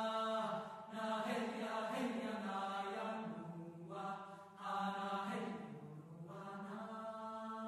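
Background music of slow, held chant-like vocal notes, the pitch shifting every second or so.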